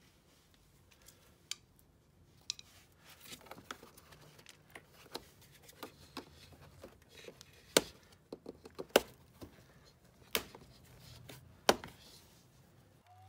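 Plastic clicks and snaps as a flat screwdriver pries at the retaining tabs of a BMW X5 E70 front bumper grille, with small rattles between; four sharper snaps come in the second half.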